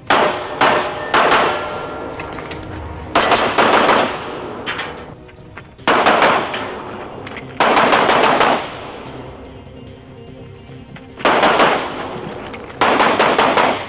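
Rapid strings of 9mm pistol shots from a Glock 19, about six quick strings of several shots each with short pauses between them.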